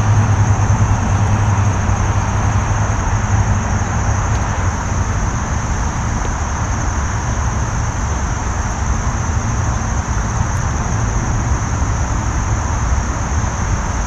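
Steady rushing noise of flowing creek water, even and unbroken, with a deep rumble underneath.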